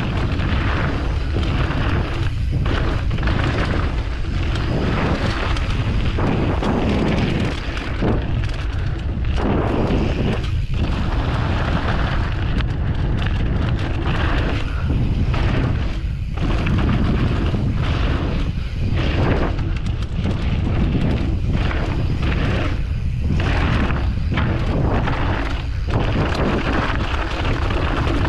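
Wind buffeting a GoPro's microphone during a fast trail descent, a continuous loud rumbling rush that swells and eases every few seconds, with the rush of tyres on the dirt trail underneath.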